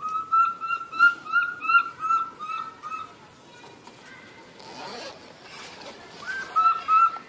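Baby macaque giving short, high-pitched crying calls, about three a second in a run of ten, then a pause and another quick run near the end.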